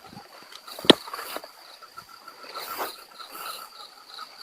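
Insects chirping steadily: one thin high trill held throughout and a second, lower chirp pulsing about five times a second. A single sharp click about a second in.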